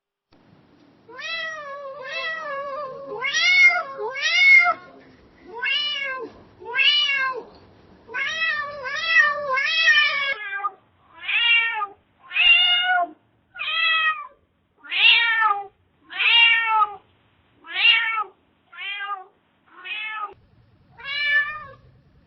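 Domestic cat meowing over and over. The first half has longer, lower-pitched meows, some run together. From about halfway on come about ten shorter, higher-pitched meows, roughly one a second.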